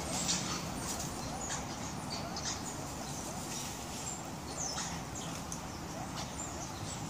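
A mongoose pack's chattering: many short, high squeaky chirps scattered irregularly over a steady background hiss.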